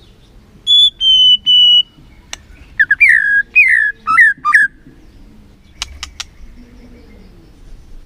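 White-rumped shama (murai batu) singing: three clear, steady whistled notes, then a quick run of loud falling slurred whistles, followed by a few sharp clicks.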